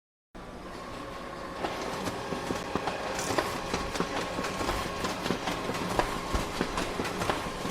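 Office printer running: a steady mechanical whir with a constant hum and rapid, irregular clicking and clatter. It starts a moment in and gets busier about a second and a half in.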